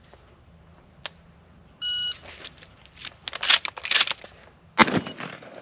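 A shot-timer beep. Then a quick run of clicking and rattling as shells are thumbed into the shotgun's magazine tube, and a single shotgun shot about three seconds after the beep.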